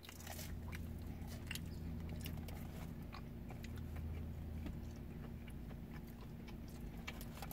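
People chewing thin-crust pizza with their mouths close to the microphone: scattered wet smacks and small crunches over a steady low hum.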